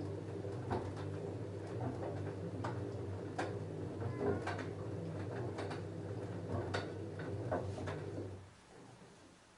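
LG F10A8HDS5 front-loading washing machine's drum motor turning a load of jeans, a steady hum with irregular clicks and knocks as the load tumbles. The motor stops about eight and a half seconds in, as the drum pauses in the wash cycle.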